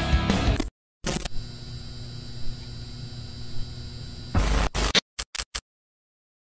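Rock music cuts off abruptly, then a glitch-effect logo sting: an electrical hum with static and a few steady tones, broken by sudden louder bursts, ending in a few quick stuttering clicks before it drops to silence.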